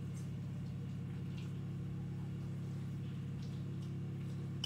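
A steady low hum, with faint scrapes and clicks of a spoon stirring a creamy shredded-chicken filling in a bowl.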